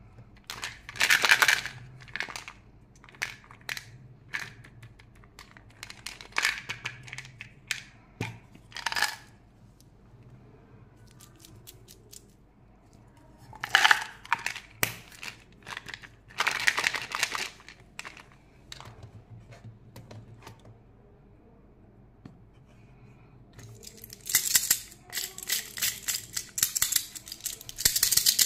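Hands handling plastic candy packaging: separate bursts of crinkling, tearing and plastic clicks as a Mentos gum bottle is opened. About four seconds before the end, a dense rattle of loose candies in a plastic candy toy starts and carries on.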